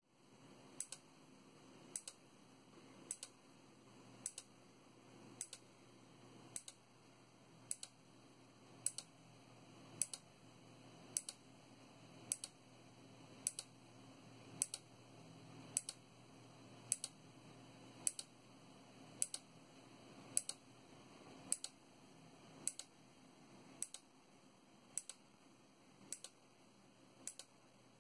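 Small PCB relay driven by a 555 timer circuit, clicking as it pulls in and clicking again as it releases a fraction of a second later, the pair repeating steadily about once a second. Each pair is one automatic left click of the mouse wired to its contacts.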